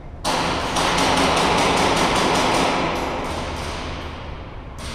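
Airsoft fire in an indoor arena: a sudden loud rush of noise with a rapid string of sharp hits, about six a second, for some three seconds, then fading, with one more sharp hit near the end.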